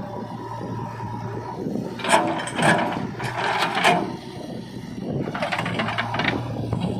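JCB 3DX backhoe loader's diesel engine running steadily, with two spells of clattering knocks and scrapes, about two seconds in and again past five seconds, as the machine works.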